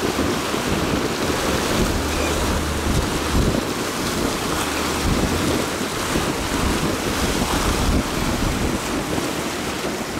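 Rushing, churning water from the wake of a U.S. Coast Guard 45-foot Response Boat–Medium running past at speed, with wind buffeting the microphone in uneven low rumbles.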